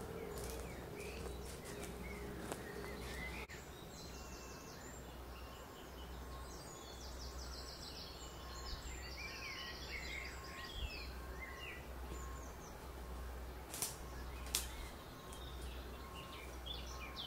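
Woodland ambience with several birds singing in quick chirps and trills, over a steady low rumble. Two sharp clicks come close together a few seconds before the end.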